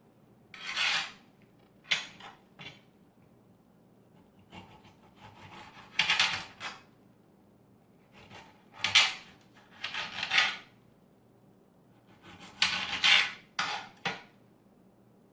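A kitchen utensil scraping and clinking against a dish in a dozen or so uneven bursts, each up to about a second long, as seeds are picked out of cut citrus fruit.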